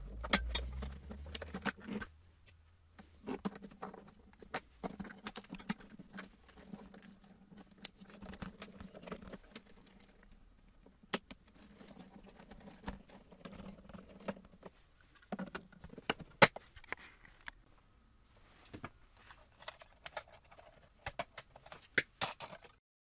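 Small parts and tools being handled, with irregular clicks, taps and light rattles, and a faint hum underneath through the middle.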